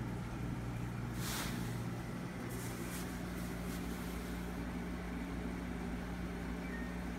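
Steady low hum of room background noise, with a short rustling hiss about a second in and a few faint soft taps a little later.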